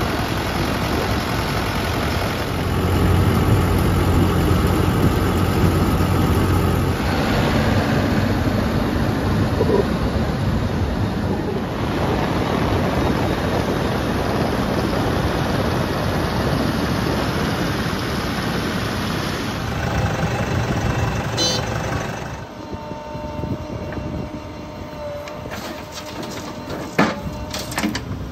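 Diesel tractor engines running at road speed, a Swaraj 843 XM and then a Mahindra Yuvo, with tyre and road noise. In the last few seconds the sound turns to a quieter JCB 3DX backhoe loader engine running at the dig site, with one sharp knock near the end.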